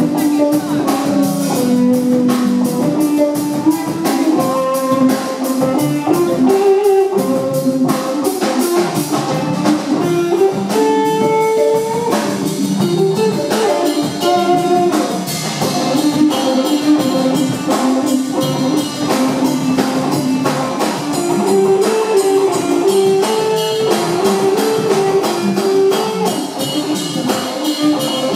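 Live three-piece band playing an instrumental jam: an electric guitar plays a melodic single-note line that steps up and down over an electric bass guitar and a drum kit keeping a busy beat.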